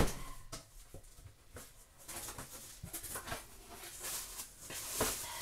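A heavy cardboard produce box being handled: a sharp thump at the start, then faint rustling and small knocks, with another softer thump about five seconds in.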